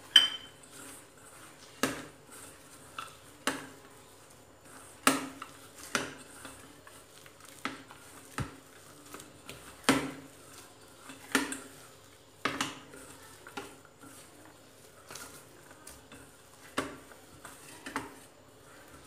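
Besan dough being kneaded by hand in a stainless steel bowl: irregular knocks and clinks of the steel bowl, roughly one a second.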